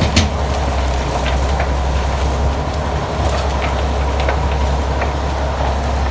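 Fish-pellet machine's crusher running with a steady low hum, its knives knocking and clattering now and then as they break up the feed.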